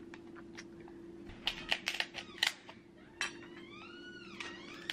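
King crab leg shell cracking and snapping as it is pulled apart by hand: a series of sharp clicks and cracks, bunched about halfway through. Near the end comes a brief high squeak that rises and falls.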